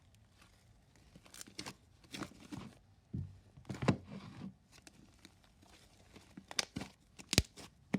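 Sticky marshmallow slime being pulled and peeled off a bucket by hand, giving irregular crackling and sharp sticky snaps, the loudest about four seconds in and again near the end.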